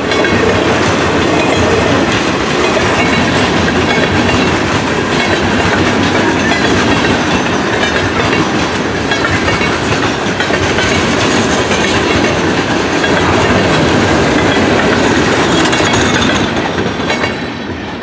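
Loaded freight train's boxcars rolling past at close range: a steady rumble of steel wheels on rail with clickety-clack over the joints. The sound fades away near the end as the last car goes by.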